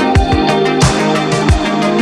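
Electronic background music with a steady thumping kick drum, fast hi-hat ticks and sustained synth chords.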